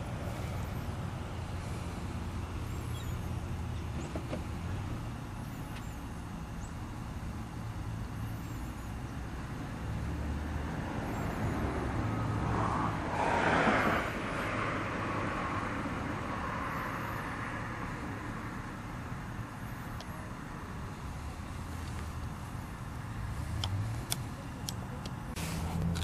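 Road traffic in the background, with one vehicle passing about halfway through, its sound swelling and fading over a couple of seconds. A few sharp clicks near the end.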